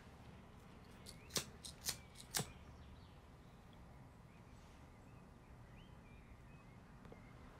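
A cigarette lighter flicked about three times, short sharp clicks roughly half a second apart, then faint room tone.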